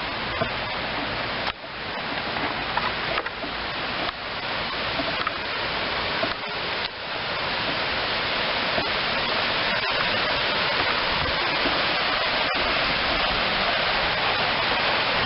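River waterfall: a loud, steady rush of falling water, broken by a few sudden dips where the sound cuts out briefly.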